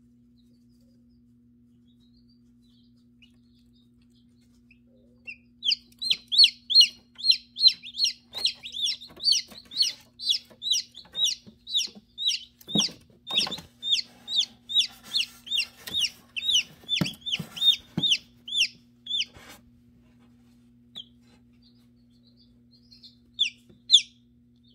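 Newly hatched chicken chick peeping loudly and rapidly, about three high, downward-sliding peeps a second. The peeping starts about five seconds in and runs for some fourteen seconds, then comes back as a few more peeps near the end. The incubator's steady low hum runs underneath, with a couple of soft knocks midway.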